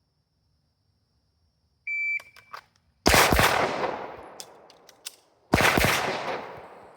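Electronic shot-timer start beep, followed about a second later by a quick cluster of pistol shots and, two seconds after that, a second quick cluster, each with a long echoing tail.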